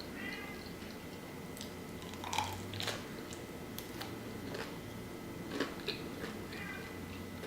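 A person biting and chewing a slice of vegan deep-dish pizza close to the microphone, with scattered mouth clicks.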